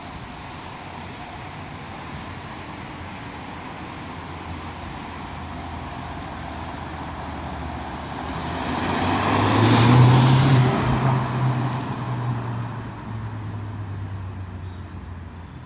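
2014 Ford Fiesta ST with its 1.6-litre turbocharged four-cylinder driving past. The engine and tyre noise build to a loud peak about ten seconds in, then fade as the car pulls away, with a low engine hum lingering.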